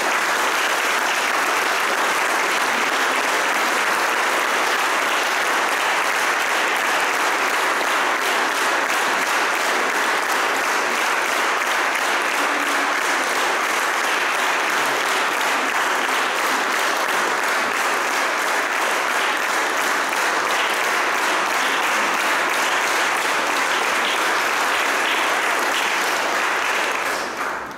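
Audience applauding steadily at full strength, dying away near the end.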